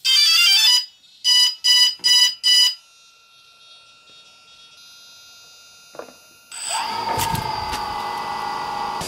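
DJI Phantom 2 Vision quadcopter powering up. It plays a quick rising run of startup tones, then four evenly spaced beeps. About six and a half seconds in, its motors start and the propellers spin up to a steady whir.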